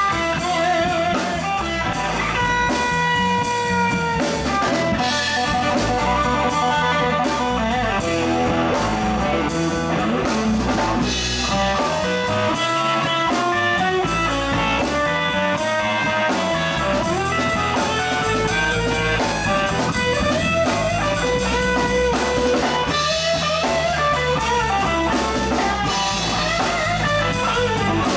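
Live rock band playing: electric guitar carrying the melody in long held notes, over bass guitar and a drum kit keeping a steady beat.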